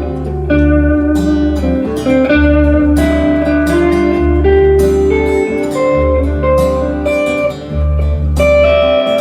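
Live band playing an instrumental jam section of a song: a lead guitar picks a melody over bass notes that change every second or so.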